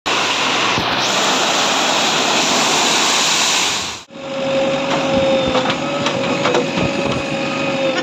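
Loud, even rushing noise of wet concrete sliding out of a tipping tractor trolley with machinery running, cut off abruptly about halfway. Then road-construction machinery runs with a steady hum and scattered knocks.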